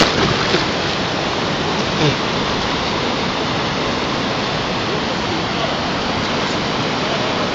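Fast river water rushing steadily, with splashing at the very start as a hooked salmon thrashes at the landing net in the shallows.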